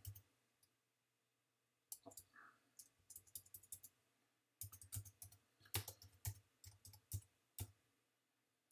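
Computer keyboard keys tapped in two quick runs of clicks, a short run about two seconds in and a longer one from about five to eight seconds. The text is being typed and deleted on the command line.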